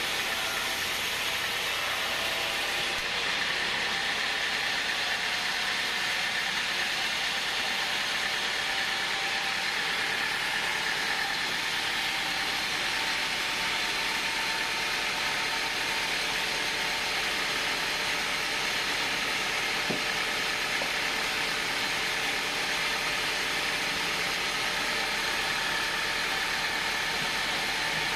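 Vertical band sawmill cutting a hardwood beam on its rail-mounted log carriage: a steady, even, high hiss of the blade running through the wood, with no breaks.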